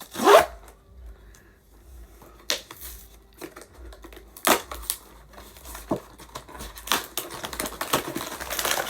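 Blind-box packaging being opened by hand: a few separate sharp clicks and taps of cardboard, then denser crinkling of the packaging near the end.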